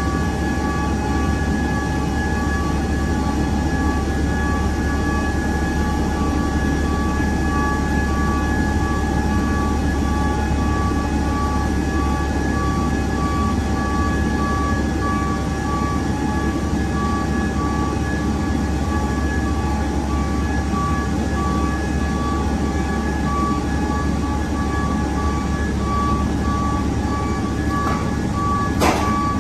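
Spartan Guardian fire truck reversing slowly inside an aircraft cargo hold: its engine runs with a steady low drone while its reversing alarm beeps steadily at an even rate. A single sharp knock sounds near the end.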